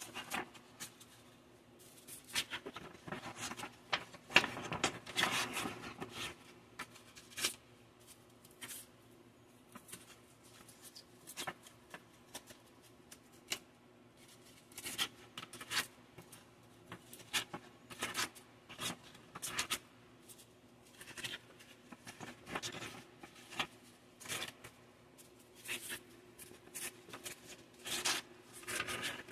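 Sheets of wet/dry silicon carbide sandpaper handled with gloved hands: the paper rustles, slides and crackles in irregular short bursts as sheets are lifted, shuffled and flexed.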